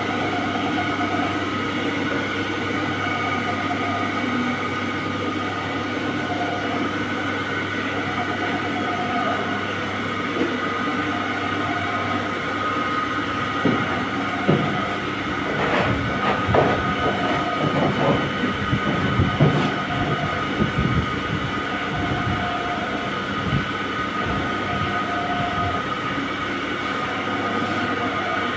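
Electric chowmein noodle machine running, its steel rollers pressing a sheet of dough: a steady mechanical whine over a low hum. Irregular clattering knocks come in for several seconds around the middle.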